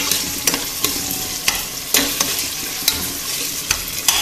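Onions, tomatoes, mint and coriander sizzling in hot oil and butter in a metal pressure cooker, being sautéed until their raw smell goes. A slotted metal spatula stirs them, scraping and knocking against the pot every half second to a second.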